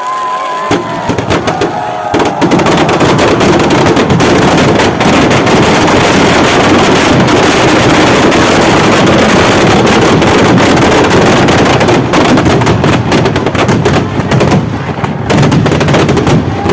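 Firecrackers packed into a burning Ravan effigy going off in a rapid, dense, continuous crackle, thinning out near the end.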